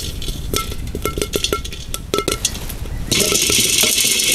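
Dried peas crackling and popping as they toast in a clay roasting pot, with a wooden stick stirring and knocking against them: many sharp clicks in quick succession, some with a brief ring. About three seconds in this gives way abruptly to a steady hiss.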